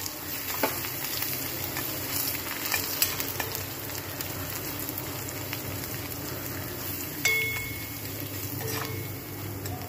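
Crushed garlic and tempering spices (mustard seeds, urad dal, cumin, curry leaves) sizzling in hot sesame oil in a kadai, stirred with a metal spatula that scrapes and taps the pan. There is a sharper clink of the spatula about seven seconds in.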